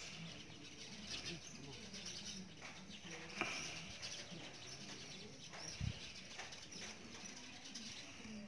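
Faint bird chirps over a steady high hiss, with a sharp click about three and a half seconds in and a low thump near six seconds.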